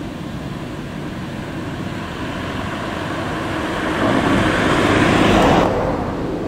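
A car passing close by on the road, its tyre and engine noise swelling to a peak about four to five and a half seconds in, then falling away sharply.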